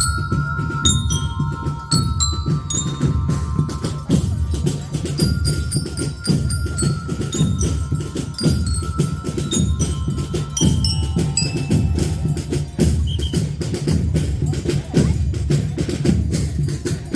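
Lyre band playing a medley: bell lyres ring out a high melody over a steady pulsing beat of drums.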